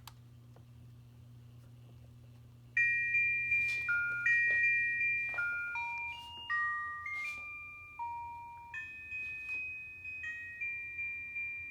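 Electronic chime melody from the musical base of a 1995 Santa's Best animated Santa and elves figure, playing a medley of holiday tunes one bell-like note at a time, each note ringing and fading. It starts about three seconds in; before that only a low steady hum is heard.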